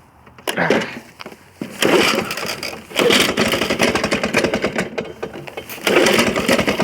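1980 Lawn-Boy model 8237 mower's two-stroke engine being pull-started: a short pull about half a second in, then it fires and runs from about two seconds in, its level swelling and easing, louder again near the end.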